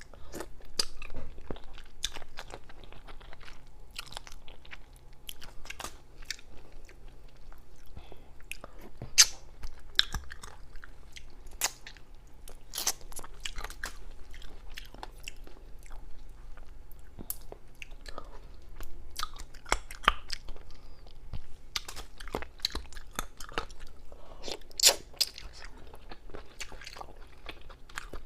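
Close-miked chewing and biting of spicy bullfrog, with many sharp, irregular crunching clicks.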